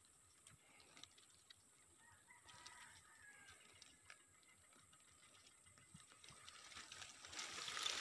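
Near silence, with a few faint distant bird calls in the middle, then leaves and grass stems rustling against the camera near the end.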